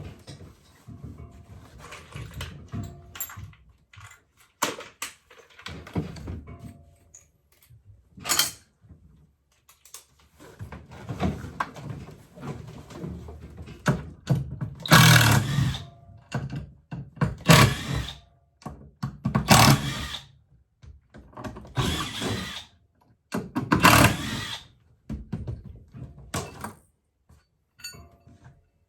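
Irregular thunks, knocks and scraping of hand tools working wood as a built-in wooden bench and storage box is pried apart inside an aluminum boat, with a handful of louder crashes in the second half.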